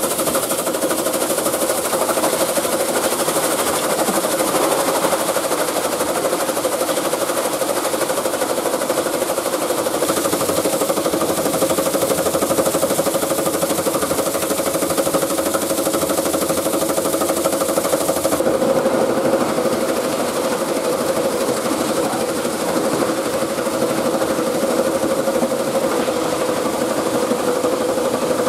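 Plastic crushing machine running and grinding scrap plastic into flakes: a steady mechanical clatter over a humming tone. The high hiss in the sound drops away about two-thirds of the way through.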